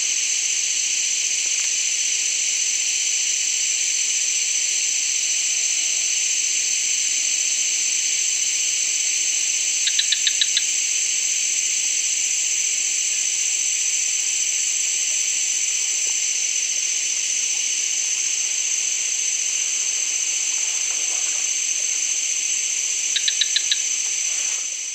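Loud, steady, shrill insect chorus of swamp forest, made of two continuous high bands. Twice, about thirteen seconds apart, a short quick run of four or five chirps rises above it.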